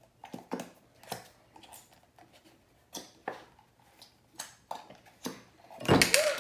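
Plastic squeeze bottles of thick glue solution being squeezed upside down into glass bowls, giving a string of short wet squirts and sputters. Near the end there is a much louder thump.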